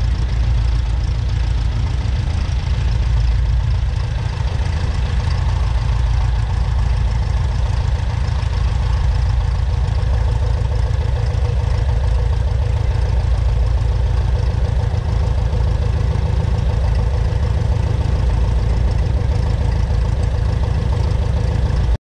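Light aircraft's piston engine and propeller running steadily in flight, a constant low drone that cuts off abruptly at the very end.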